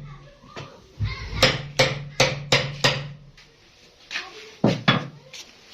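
A run of sharp knocks or bangs, six about 0.4 s apart, then after a pause three more in quick succession.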